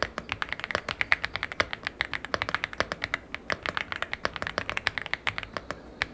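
Aula F75 gasket-mounted mechanical keyboard with pre-lubed linear Reaper switches and double-shot PBT keycaps being typed on, a rapid, steady stream of keystrokes with a thocky sound.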